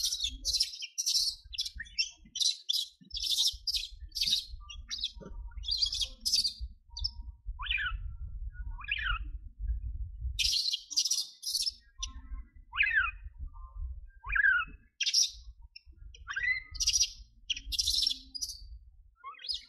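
High-pitched chirping calls in quick runs, with several sharp whistles sliding downward, over an intermittent low rumble.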